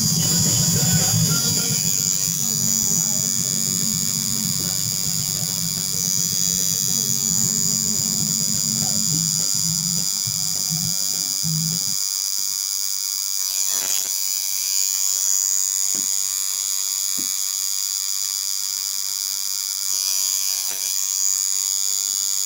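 Tattoo machine running with a steady high-pitched electric buzz. A lower drone sits under it for about the first half and stops about halfway through.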